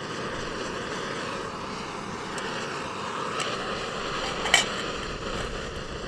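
MSR PocketRocket 2 gas canister stove burning with a steady roar. A single sharp knock sounds about four and a half seconds in.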